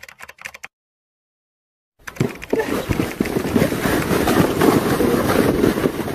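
A few crackling clicks, then dead silence where the recording is cut. About two seconds in, a loud, rough rushing and scraping noise with many small knocks begins: a sled sliding over snow with the phone held by the rider, wind buffeting its microphone.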